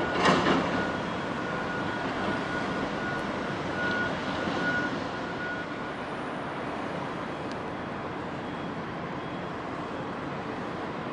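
Steady background noise of a busy port, with distant traffic and machinery. About half a second in there is a sudden loud noise, twice in quick succession, and a faint steady high tone sounds for the first five seconds or so.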